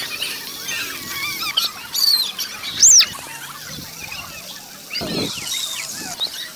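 Many young children shrieking and calling over each other. One loud, high squeal rises and falls about three seconds in.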